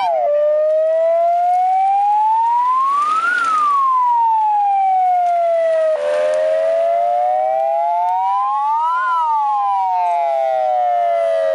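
Electronic siren wailing: two slow cycles of rising and falling pitch, each about six seconds long.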